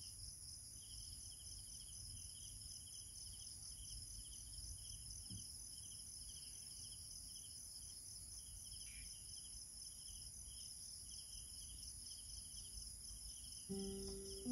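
Chorus of night insects: a steady high-pitched trill under rows of rapid, rhythmic chirps, crickets among them. Near the end an acoustic guitar starts to sound a few notes, louder than the insects.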